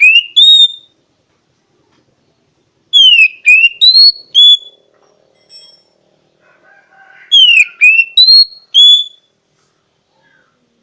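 Oriental magpie-robin (kacer) singing a short whistled phrase over and over: a falling whistle, a quick rising note, then a higher held note. The phrase comes about every four seconds, twice in full after the end of a first one.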